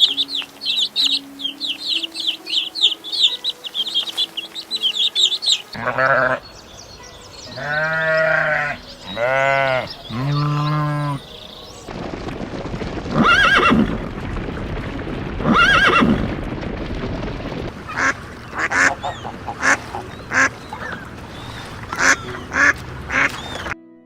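A run of recorded farm animal calls, one kind after another: about six seconds of rapid high chirping over faint background music, then three long calls about a second each, then a string of shorter calls over a noisy background.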